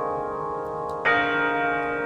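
Aeolian-Skinner virtual pipe organ holding a full chord in a Christmas hymn, then moving to a new chord about a second in.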